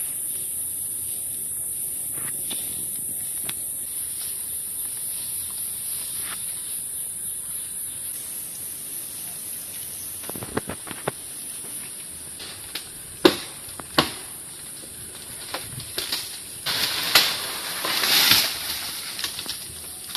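A steady high-pitched drone of forest insects. From about halfway, scattered snaps and rustles of branches and foliage, with two sharp cracks and a longer burst of rustling near the end, as a climber moves through the tree.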